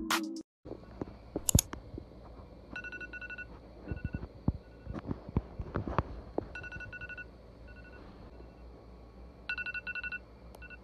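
Smartphone wake-up alarm going off: short electronic beeps in quick bursts, repeating every second or two, with scattered clicks and knocks as the phone is handled.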